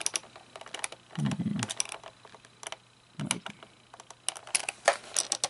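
Irregular light clicks and taps of a Gemmy animatronic's plastic parts being handled during work on its dance mechanism.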